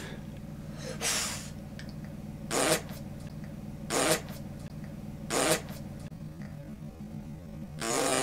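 A young boy blowing short, spluttering raspberries through his lips, about five puffs roughly a second and a half apart, the last one longer.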